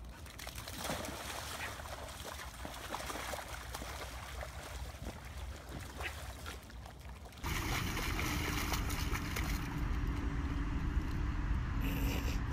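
Dog splashing and thrashing in a muddy puddle, with irregular splashes. About seven seconds in, the sound changes abruptly to a louder, steady low rumble.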